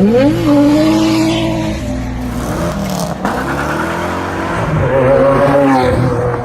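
Holden VN Commodore's 304 V8 revving hard, its pitch climbing quickly at the start, held high, then climbing again about five seconds in.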